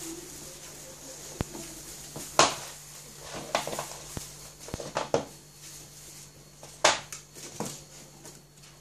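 Golden retriever puppies playing on a hard floor: scattered sharp clicks and knocks from their claws and the shoes and slippers they push around. The loudest knocks come about two and a half and seven seconds in.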